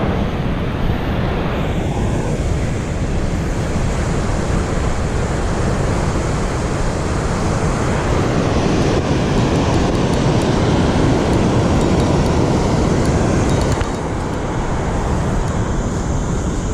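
Steady, loud rush of water pouring through a dam spillway.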